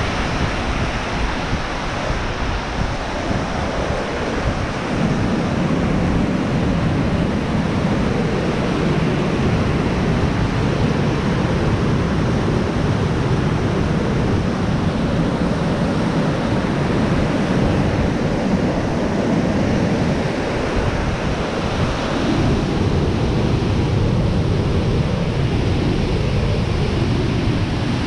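Whitewater of a river waterfall rushing steadily over rocks, a constant deep rush that grows a little louder about five seconds in.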